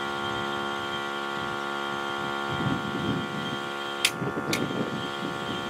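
Viking jump-pack tire compressor running with a steady, even hum as it airs up a tire. Two sharp clicks come about four seconds in.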